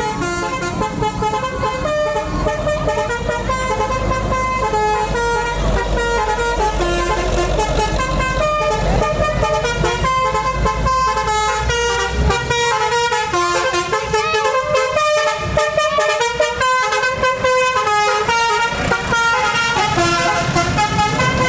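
A bus's telolet basuri horn playing a tune, its notes stepping quickly from pitch to pitch. The bus's engine rumbles under it until about halfway through, when it falls away and the horn tune goes on alone.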